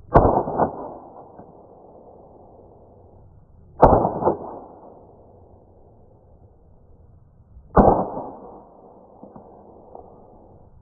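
Marushin CZ75 gas-blowback airsoft pistol, running on duster gas and ejecting its plastic shells, fired three times about four seconds apart. Each shot is a sharp report, followed by a second clack about half a second later and a tail that fades over about a second.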